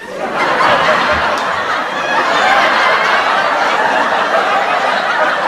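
Audience laughter from many people at once, a steady crowd laugh that starts abruptly and cuts off suddenly, like an edited-in laugh track.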